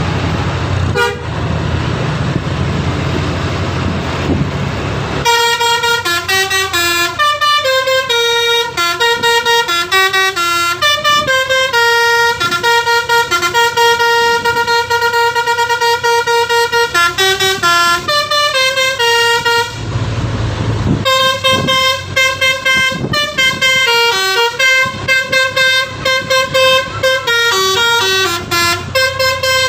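A bus's Basuri telolet musical horn plays a tune of quickly changing notes. It starts about five seconds in, after engine and road rumble, stops for about a second near twenty seconds, then plays again.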